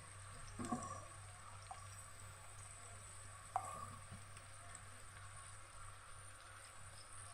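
Faint handling sounds as wet pieces of fish are set into a tagine: a soft knock less than a second in and a short sharp clink about three and a half seconds in, over a steady low hum.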